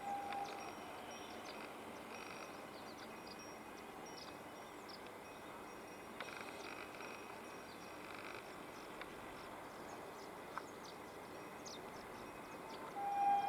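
Quiet open-air trackside ambience with faint bird chirps. Near the end an approaching express train's locomotive horn starts to sound, a loud steady two-tone blast.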